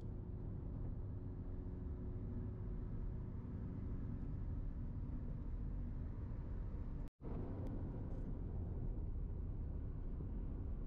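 Steady low road rumble of a taxi at highway speed, heard from inside the cabin: tyre and engine noise. The sound cuts out completely for a moment about seven seconds in.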